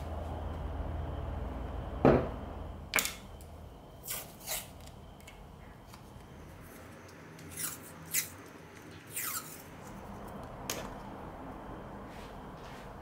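A heavy wooden log blank set down with one solid thud about two seconds in, followed by a scattering of light clicks, taps and short scrapes as a small wooden glue block and a glue tube are handled on its surface.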